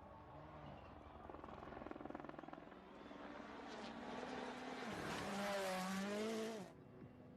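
Rally car approaching at speed, its engine growing steadily louder with its pitch rising and falling, before the sound cuts off abruptly near the end.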